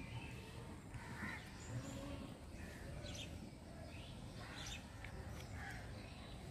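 Kittens giving several short, high mews while being offered raw fish, over a steady low background rumble.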